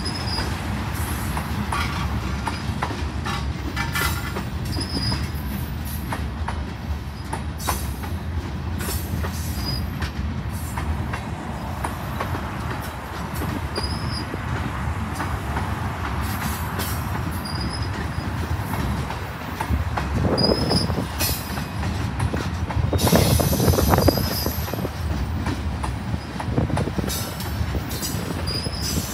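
Freight cars rolling past at speed: steel wheels on rail, with clicks over the rail joints and short high wheel squeals every few seconds. It gets louder about twenty seconds in.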